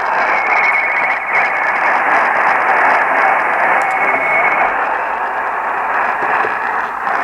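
Steady radio static hiss from a receiver, with a faint wavering whistle over it for the first few seconds.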